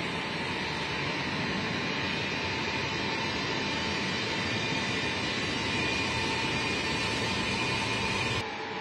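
Ilyushin Il-76 transport's four turbofan engines running as the plane rolls along the runway: a steady jet noise with a high whine, growing slightly louder, then dropping abruptly near the end.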